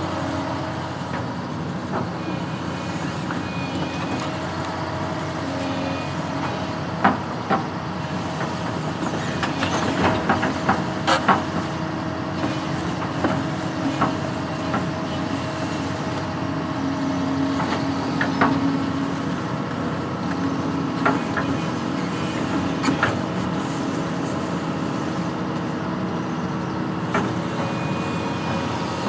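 Construction machine engine running steadily, with occasional sharp metallic clanks from the machine working.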